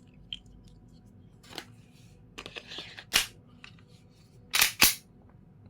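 Sharp mechanical clicks and clacks of an airsoft Glock 18C pistol being handled, with a short rattle in the middle and a loud close pair of clacks near the end.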